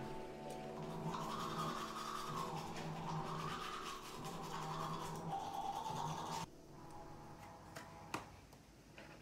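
Teeth being brushed with a toothbrush: a scrubbing brushing noise that cuts off abruptly about six and a half seconds in, followed by a single sharp click.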